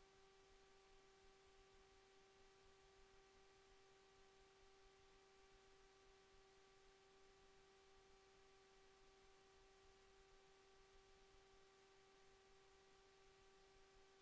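Near silence with a faint, steady hum: one unchanging tone with a few overtones over light hiss.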